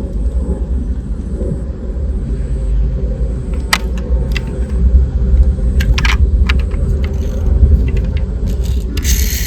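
Toy vehicles rolling: a steady low rumble with scattered light clicks and clinks, and a brief hiss near the end.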